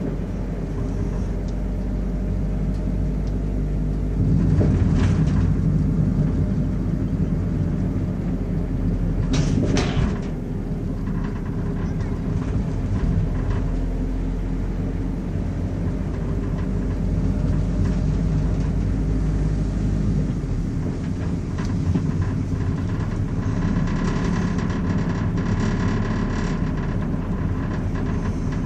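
Car engine and tyre noise from a car being driven, picked up by a dashcam, steady with a louder stretch about four seconds in and brief rushes about five and ten seconds in. Near the end a higher sound with several tones joins it.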